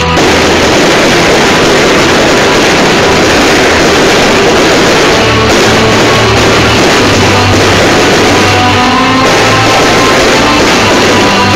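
Loud rock music with guitar over a bass line that steps between a few low notes.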